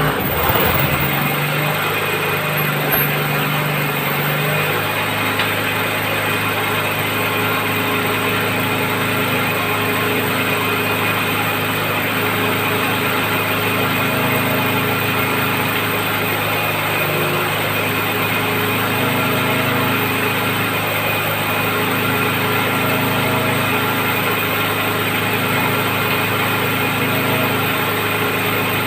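Engine of a well-drilling rig running steadily. Its lowest note shifts down a few seconds in and then holds steady.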